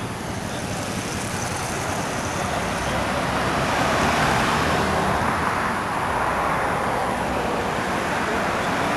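Road traffic noise: a car passing on the road, its tyre and engine noise swelling to a peak about four seconds in and then easing, over a steady low hum.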